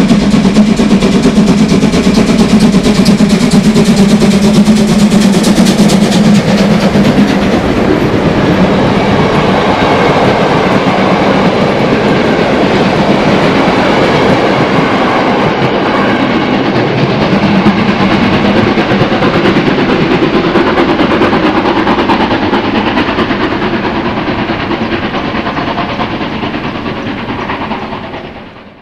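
DR class 01.5 steam express locomotive 01 0509 running past with a train of coaches, loudest in the first six seconds as the engine goes by under steam, then the coaches rolling past and slowly fading before the sound cuts off at the end.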